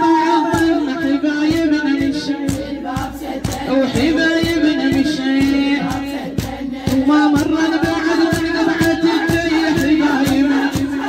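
A group of mourners chanting a latmiyya refrain together over a fast, steady beat of hands slapping their chests (latm).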